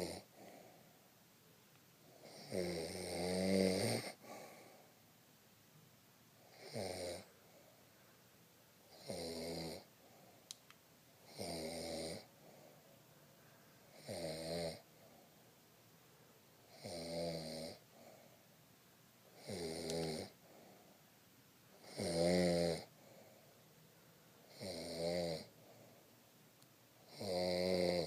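A grandmother snoring in her sleep: a rattling snore about every two and a half seconds, ten in all, each lasting about a second, with quiet breathing gaps between.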